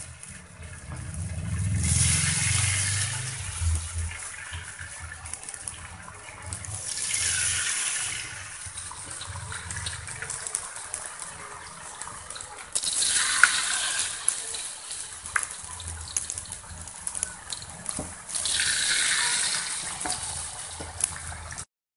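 Corn fritter batter frying in hot cooking oil in a wok, a steady sizzle that swells louder four times as fresh batter hits the oil.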